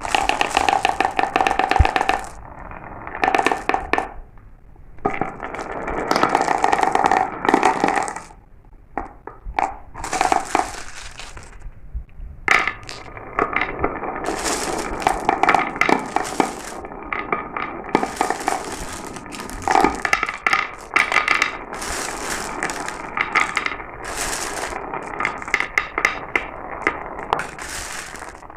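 Marbles rolling and clattering down a marble run, a dense stream of small clicks and rattles that comes in surges with short lulls between.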